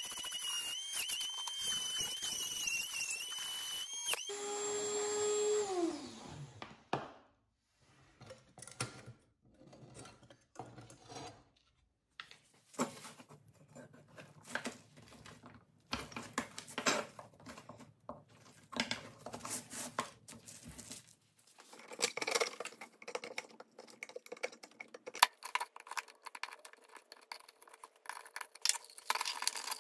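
A small handheld rotary tool whines at high speed against rusty steel. About four seconds in it is switched off and winds down with a falling pitch. After that come irregular scrapes, clicks and taps of a metal pick on the rusted toy-truck parts as rust is picked away and rusted-together pieces are worked loose.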